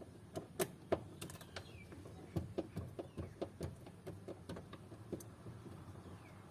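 Hand tool undoing the screws of a car's inner door trim panel: a run of short, sharp, irregular clicks, densest about two to four seconds in and thinning out toward the end.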